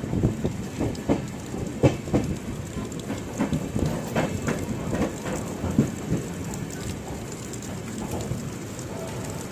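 Passenger train running through a rail yard in rain: a steady wash of rain and running noise, with irregular knocks of the wheels over rail joints and points that come often at first and thin out in the last few seconds.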